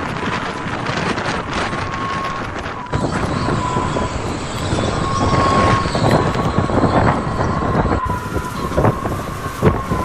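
Gale-force storm wind blasting across the microphone in a loud rushing din, with a thin steady whistle running through it. The sound changes abruptly twice.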